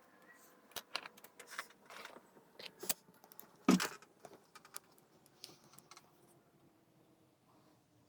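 Small irregular metallic clicks and taps of lock picks and a tension wrench working in a Yale euro cylinder lock, with one louder knock a little under four seconds in and fewer clicks towards the end.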